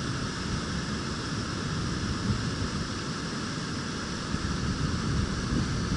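Steady rushing water noise with uneven low rumbling from wind on the microphone.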